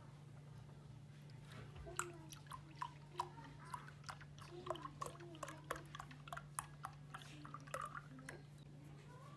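Cold milk poured from a carton into a glass: quick, irregular glugs and splashes from about a second and a half in until near the end. A steady low hum runs underneath.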